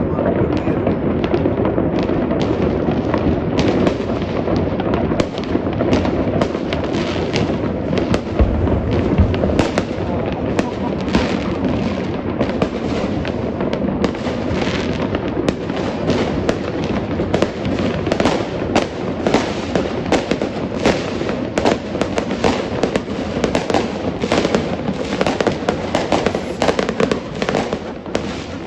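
Many fireworks going off at once: a continuous rumble of distant booms with sharp cracks and bangs coming thick and fast. The cracks come more often from about halfway through.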